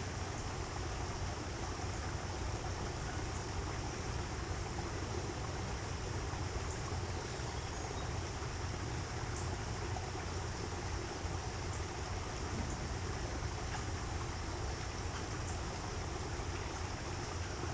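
Steady rushing of water in an aviary stream, with a few faint, short high chirps from birds now and then.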